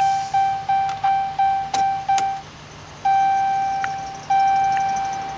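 Dodge Ram instrument-cluster warning chime, the key-in-ignition reminder: quick decaying dings about three a second. After a short pause about two and a half seconds in, it changes to slower, longer tones a little over a second apart. A few sharp clicks sound over it.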